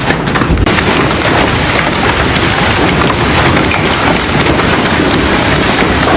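Heavy storm downpour pounding down, a dense steady hiss that sets in abruptly under a second in.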